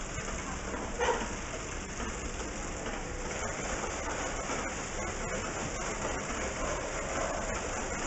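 Servo-driven horizontal flow wrapper running, a steady mechanical hiss with faint scattered ticks over factory-floor noise. A brief louder rustle sounds about a second in.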